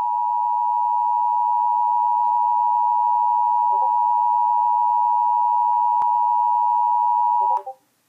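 Emergency Alert System two-tone attention signal played through a laptop's speakers: a steady, loud dual tone that cuts off sharply near the end. It signals that an emergency alert follows, here a severe thunderstorm warning.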